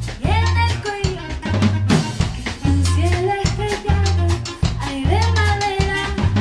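Live band music: a drum kit and an electric bass play a steady beat under a held, wavering lead melody.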